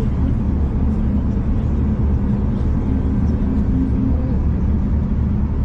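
Steady low rumble of a V/Line passenger train running along the line, heard from inside the carriage.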